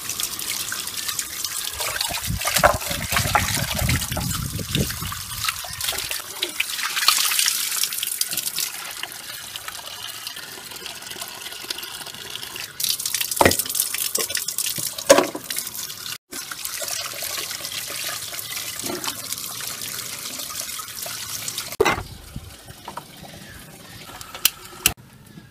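Tap water running and splashing into a stainless steel pot as raw chicken legs are rinsed and handled in it, with a few knocks of the metal pot. About 22 seconds in the water stops, and near the end come a few faint clicks of a long gas lighter at a stove burner.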